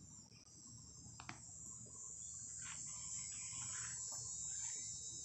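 Insects calling in a steady, high-pitched chorus that grows louder about two seconds in, with a few short faint chirps over it and a low rumble underneath.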